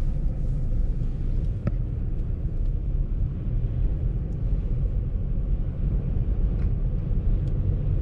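Blizzard wind buffeting and howling around a moving car, heard from inside the cabin as a steady low rumble over the road noise.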